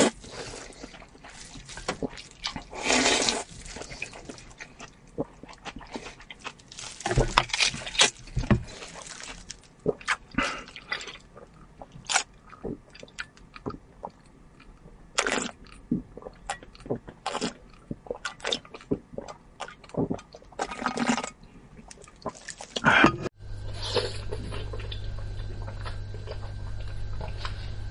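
Close-miked eating sounds: long loud slurps of sour and spicy noodles and their broth, with wet smacks and clicks between them. About 23 seconds in the sound changes to a steady low hum, with crisp bites into a raw zucchini over it.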